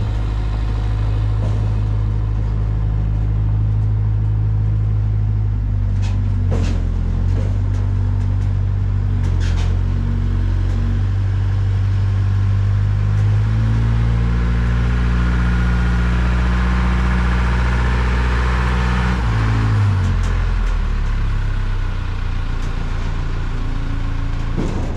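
Detroit Diesel 12V71 twin-turbo V12 two-stroke diesel generator engine running loudly, its engine speed stepping up about halfway through and dropping back a few seconds later.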